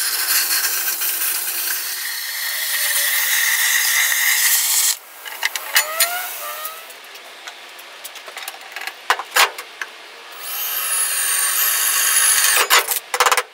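Plasma cutter cutting through steel plate: a loud, steady hiss for about five seconds that stops abruptly. Scattered clicks and clinks of metal follow, and near the end a drill bores into the plate with a high, wavering whine.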